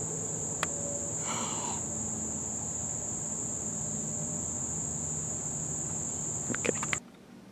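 Steady, high-pitched chorus of insects buzzing without a break, with a few short clicks shortly before it cuts off suddenly about seven seconds in.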